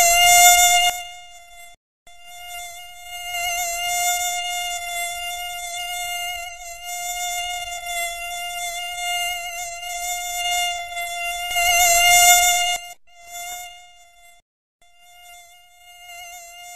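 Mosquito whine, a steady high-pitched buzzing tone. It swells loudest twice, at the start and about twelve seconds in, as if flying close past the ear. It cuts out briefly a few times, and near the end it is fainter.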